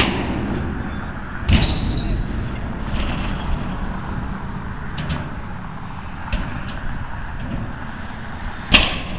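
BMX bike riding skatepark ramps: a steady low rumble of tyres rolling, with sharp bangs as the bike drops and lands, one at the start, one about a second and a half in and a loud one near the end, plus a few lighter clacks.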